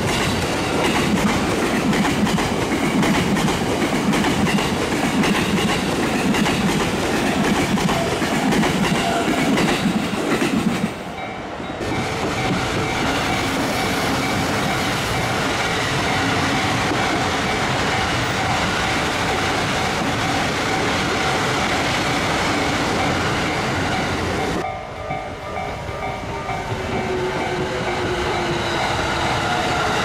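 Commuter trains rumbling past a level crossing one after another, their wheels clattering over the rail joints, with brief lulls about eleven and twenty-five seconds in. Through it, and most plainly near the end, the crossing's warning bell keeps up its steady ding-ding while the barriers stay down.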